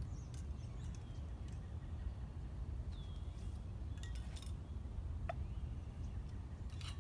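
Steady low rumble of outdoor background noise, with scattered light clicks and clinks of handling and a faint bird chirp about three seconds in.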